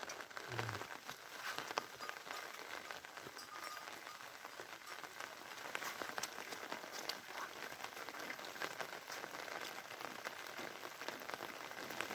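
Steady rain falling, with many small sharp ticks of individual drops striking close by.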